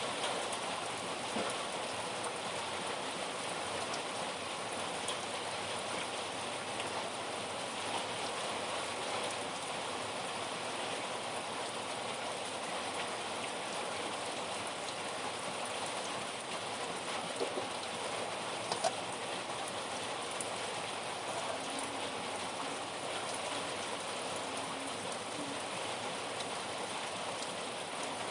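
Steady rain falling, with a few faint short ticks about two-thirds of the way in.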